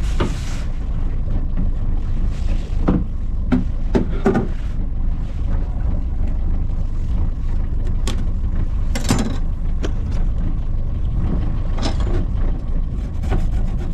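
Steady low rumble with several sharp knocks and clunks as a bucket lid and a bait fish are handled on a boat deck.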